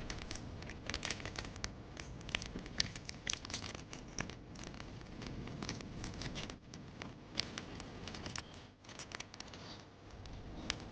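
Foil wrapper of a Pokémon booster pack crinkling and scratching in quiet, irregular crackles as fingers work at tearing it open.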